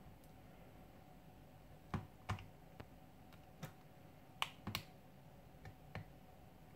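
Faint, irregular small clicks and snaps, about eight of them, as fingers pry at a stuck motherboard in an Asus Zenfone 2 ZE550ML smartphone's frame.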